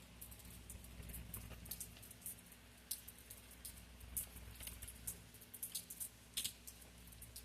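Scattered raindrops pattering in irregular sharp ticks, several a second, over a faint low steady hum.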